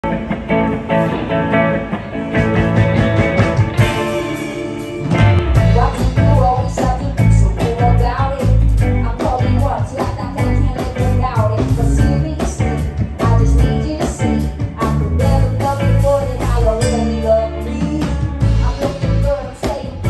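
A live rock band playing: electric guitars, electric bass and a drum kit, with a woman singing. The bass and drums come in fully about five seconds in.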